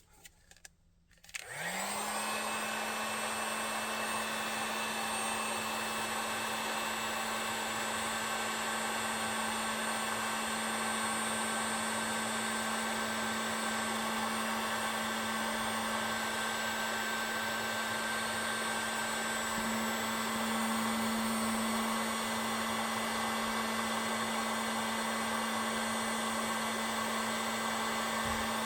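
Heat gun switched on about a second and a half in, its fan motor spinning up quickly and then running with a steady whine and rush of air, shrinking heat-shrink tubing over freshly spliced wires.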